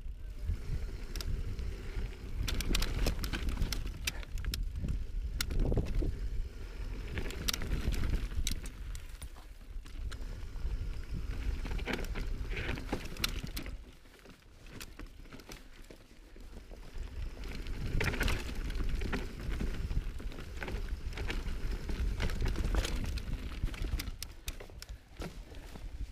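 Mountain bike being ridden over rough trail: wind buffeting the camera microphone with a low rumble, and a scatter of clicks and rattles from the tyres and bike over rocks and roots. It eases off for a few seconds about halfway through, then builds again.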